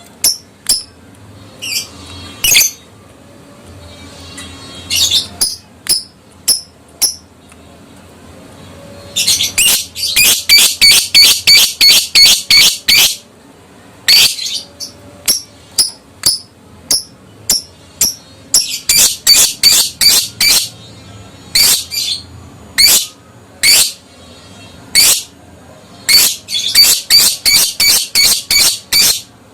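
Lovebird calling: sharp, shrill chirps, some single and some in fast runs of about four a second lasting a few seconds, the chattering 'ngekek' song of an excited adult bird.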